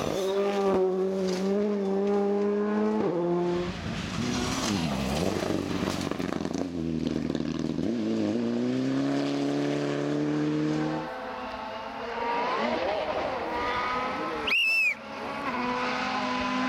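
Rally cars racing past one after another: engines held at high revs, one note climbing as a car accelerates, and a single sharp bang near the end.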